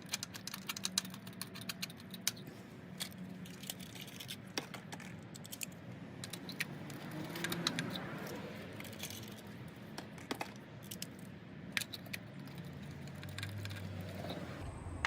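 Small, irregular metallic clicks and rattles of a spark plug socket and extension being turned by hand, threading a new spark plug into the cylinder head of a four-cylinder engine.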